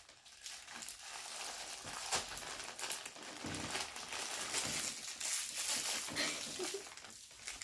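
Plastic packaging crinkling and rustling in hands, with irregular crackles and small clicks, as a fidget toy is taken out and unwrapped.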